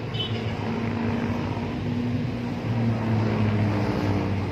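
An engine droning steadily with a low hum, growing louder about three seconds in.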